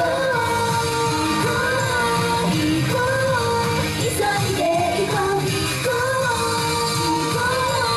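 Female idol group singing a pop song live, a sung melody over a steady, full band-style backing.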